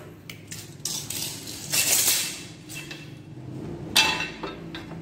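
Hand tools handled on wooden slats: scattered clicks and rattles, a half-second scraping rattle about two seconds in, and a sharp metallic clink about four seconds in as a flat metal rule is taken up.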